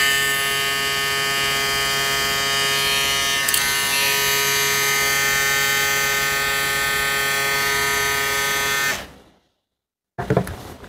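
Jucai Pro Minicandy cordless hair clipper running with a steady electric buzz, then switched off about nine seconds in and winding down. A few brief knocks follow near the end.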